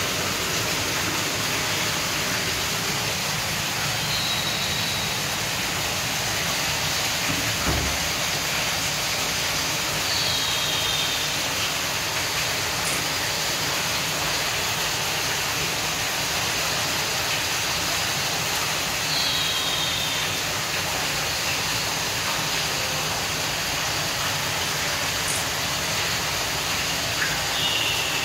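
Steady rushing noise throughout, with a short high double chirp four times, spaced several seconds apart.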